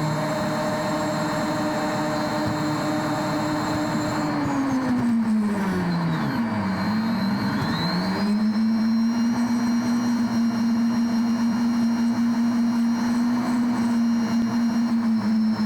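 Combine harvester engine running steadily under way; about four seconds in it slows down, bottoms out after about two seconds, then picks back up and holds a steady speed a little lower than before, with a faint high whine riding along.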